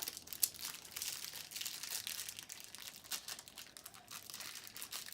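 Toy packaging being unwrapped by hand: irregular crinkling and rustling with some tearing, in quick sharp crackles.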